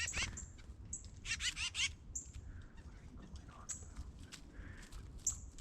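Small woodland birds calling close by: a high, thin note repeating about every second and a half, and a short burst of quick, harsh chattering calls about a second and a half in, with scattered light clicks.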